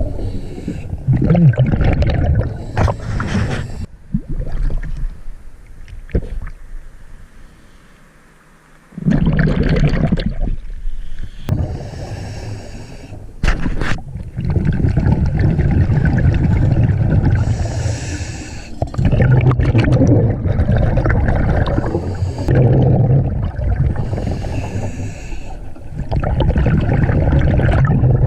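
Scuba diver breathing through a regulator underwater: gurgling rushes of exhaled bubbles several seconds long, with quieter stretches between them.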